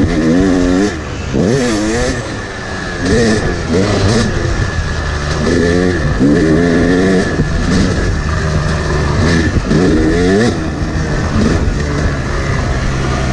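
Yamaha YZ250X two-stroke dirt bike engine under hard riding, its revs rising and falling repeatedly, about once a second, as the throttle is worked.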